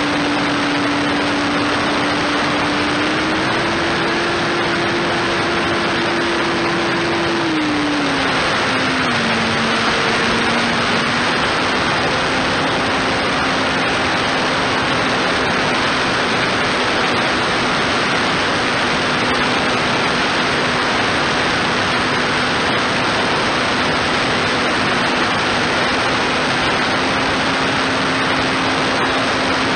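Electric motor and propeller of a foam RC plane in flight, heard from a camera on board: a steady hum over heavy wind noise. The pitch rises slightly a few seconds in, drops about eight seconds in, then holds steady.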